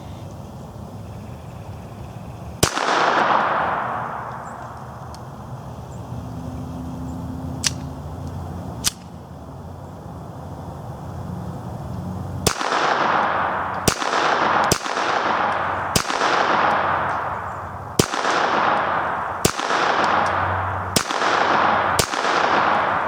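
Walther P22 .22 LR semi-automatic pistol fired without a suppressor, with CCI Green Tag ammunition. One shot comes about three seconds in, then two faint clicks, then after a pause a string of about ten shots roughly a second apart, each with a trailing echo.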